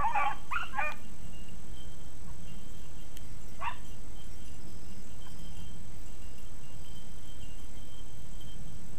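Beagles baying on a rabbit's track: a quick run of bays in the first second, then a single bay about three and a half seconds in, over a steady low outdoor rumble.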